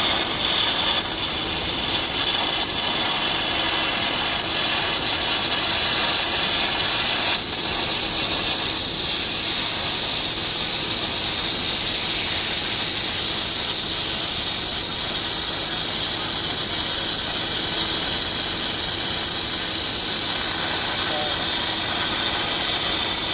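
Fiber laser cutting head slicing 25 mm plate: a steady high hiss of the assist-gas jet blowing through the kerf, easing slightly for a moment about seven seconds in.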